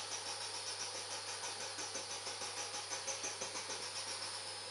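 Small 3-inch model steam boiler hissing on its gas burner, with a rapid high-pitched fluttering sputter about four or five times a second that stops near the end, leaving a steady hiss, as the boiler builds steam pressure.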